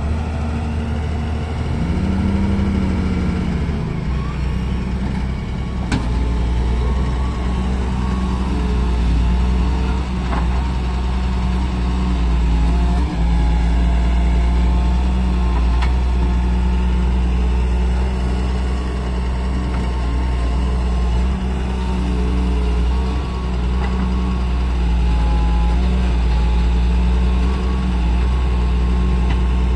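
Diesel engine of a Doosan wheeled excavator running steadily under hydraulic load while it digs and loads earth. Its note rises briefly about two seconds in, and a few faint knocks come through.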